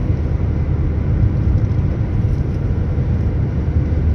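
Steady low rumble of road and engine noise from a car driving along a road.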